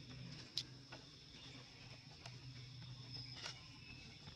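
Faint steady background with a few short sharp clicks, the loudest about half a second in.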